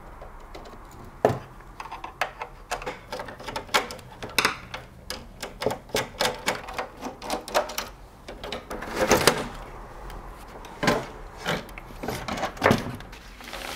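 Irregular clicks and knocks of cable plugs and connectors being handled and pulled out at the back of a computer, with a louder clatter about nine seconds in.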